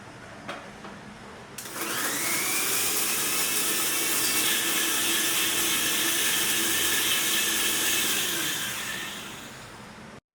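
Electric mixer grinder running: a light click, then the motor spins up with a rising whine and runs steadily for about seven seconds before winding down near the end.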